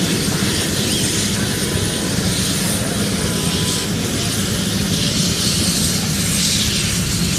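Steady rumble and hiss of a large fire burning at a filling station, fed by an exploded gas cylinder.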